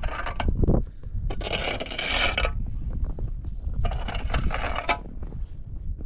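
Repeated scraping strokes, each about a second long, with a low wind rumble on the microphone.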